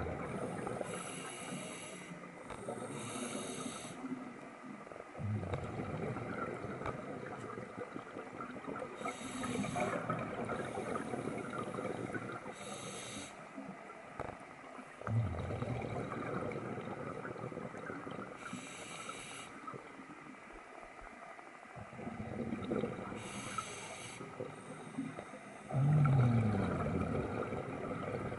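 Scuba diver breathing through a regulator underwater: each inhale is a hiss through the regulator and each exhale a burst of bubbles, in slow breaths several seconds apart. The loudest bubble burst comes near the end.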